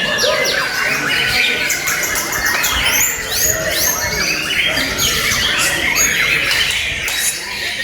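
Several white-rumped shamas singing at once, overlapping loud whistled phrases, rising and falling glides and fast chattering notes.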